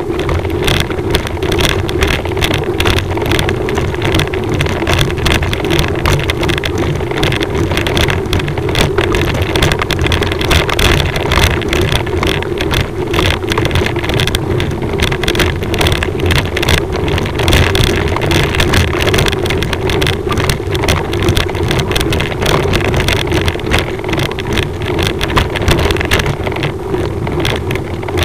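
Steady motor vehicle engine running at low speed, with rumble and wind buffeting on the microphone, from the vehicle carrying the camera along a rough gravel road.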